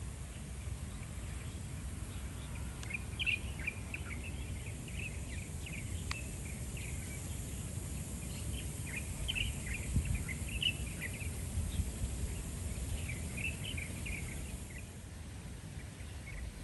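Steady rain falling on puddled pavement and grass, a soft even hiss, with small birds chirping in short scattered calls throughout and a low rumble underneath.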